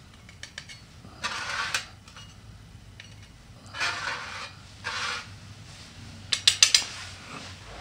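Knife blade scraped along the flint of a magnesium fire starter in three short strokes, each about half a second long, to throw sparks. There are a few sharp clicks near the start and a quick loud cluster of clicks about six and a half seconds in.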